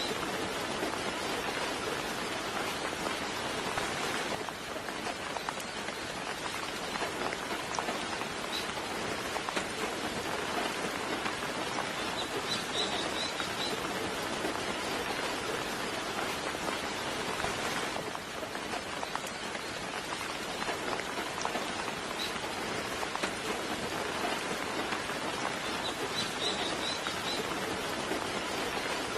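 Steady soft rain falling. A bird calls in short clusters of high chirps twice, about halfway through and again near the end, with a single chirp now and then.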